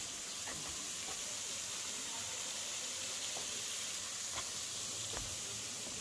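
Steady hiss of a thin waterfall's falling water, running low after a dry spell.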